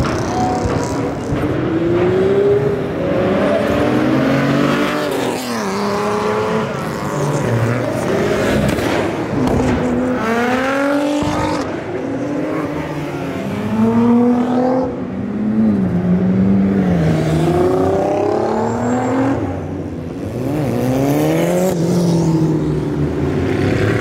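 Sports car engines revving again and again, the pitch climbing and falling every second or two, with revs from more than one engine sometimes overlapping.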